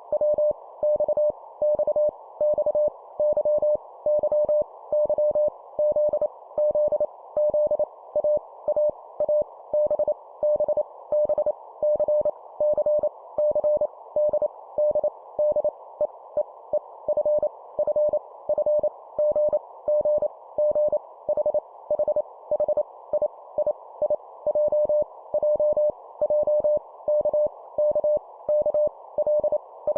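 Morse code (CW) practice tone at 25 words per minute: a single steady mid-pitched tone keyed on and off in dots and dashes, each letter sent three times in a row, over a faint band of hiss.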